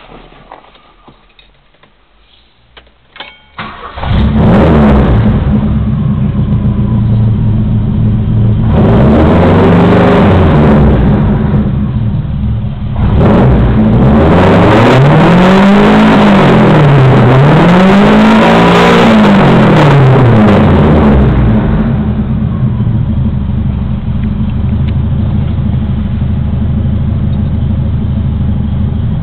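Ford Maverick GT4's engine started after a few faint clicks, catching loud about four seconds in. It is revved once, then twice more in quick succession, dropping back to a steady idle between revs, and is switched off at the end.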